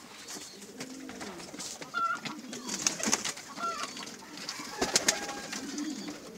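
Domestic pigeons cooing in a wire cage, with a few sharp clicks and knocks, the loudest about five seconds in.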